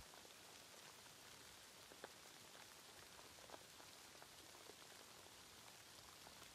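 Faint steady rain: an even hiss with scattered single drops ticking here and there.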